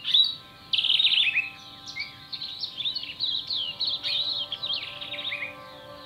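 Birds chirping and singing: many quick, high chirps and short down-sweeping calls, loudest in the first second or two, over faint, steady sustained music tones.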